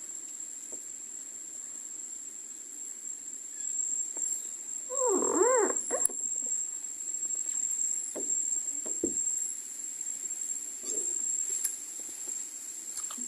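Steady high-pitched insect drone, with a short wavering call about five seconds in and a few light clicks.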